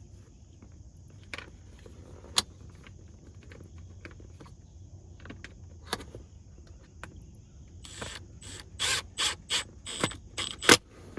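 Hands working on car interior parts: scattered sharp clicks and knocks, then a quick run of louder scraping and clattering over the last few seconds, with the loudest knock just before the end.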